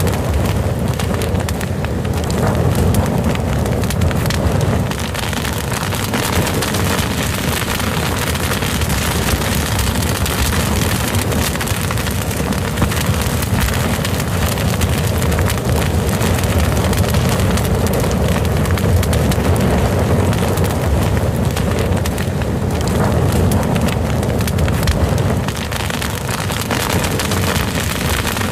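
Fire burning steadily: dense, continuous crackling over a deep, steady rumble.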